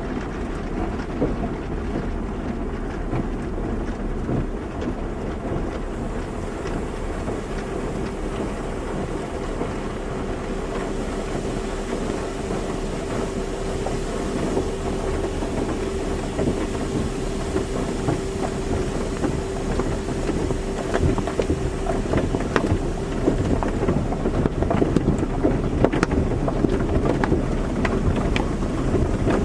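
Automatic car wash running: a steady rush of spraying water and machinery. A faint steady hum joins about eight seconds in and stops around twenty seconds, and sharper spattering hits come more often near the end.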